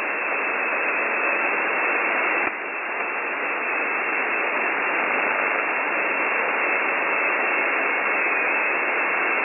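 Shortwave radio static on 4016 kHz, received through a WebSDR: a steady hiss of band noise with no voice on the channel, cut off above the receiver's narrow audio passband. There is a brief click and dip about two and a half seconds in.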